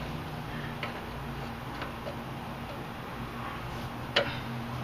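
Faint, light metallic clicks about a second apart over a low steady hum, then one sharper metal click about four seconds in as a pick tool catches on the pitman shaft seal in the steering gearbox bore.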